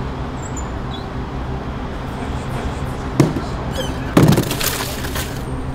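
A cardboard box dropped onto a paved sidewalk: a loud thump about four seconds in, followed by about a second of rattling and scraping, with a sharp click a second before it. Steady street hum underneath.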